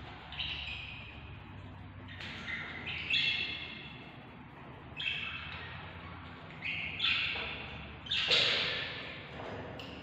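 Budgerigar chicks in the nest box calling: a series of short chirping calls, some in quick pairs, the loudest near the end. A steady low hum runs underneath.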